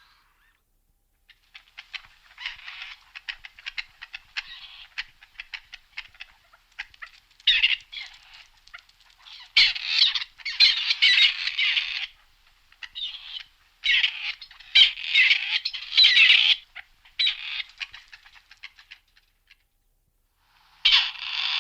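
Grey partridge calling: a rapid, grating chatter of dry rasping notes that comes in several louder bursts, with a short silent gap at the start and another near the end.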